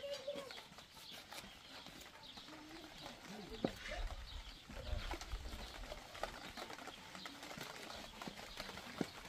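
Faint rural ambience of birds and farm animals calling, with occasional sharp taps of a knife on a wooden cutting board as raw meat is cut.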